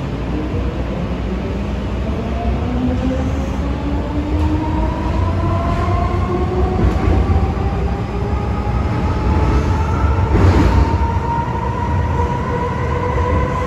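Hong Kong MTR M-train electric multiple unit accelerating hard: the traction motors' loud whine, several tones together, rises steadily in pitch over the low rumble of the train running on the rails. A short rush of noise comes about ten seconds in.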